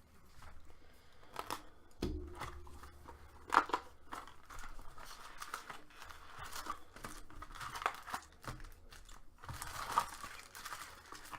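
Plastic wrapping crinkling and tearing and cardboard being handled as a trading-card hobby box is opened and its packs lifted out, with a few sharp clicks and snaps along the way.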